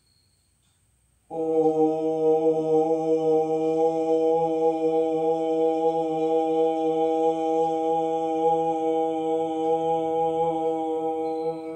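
A man chanting "Om" on one long out-breath in Om jap meditation: a steady "O" held at one pitch, starting about a second in, closing near the end into a quieter hummed "m".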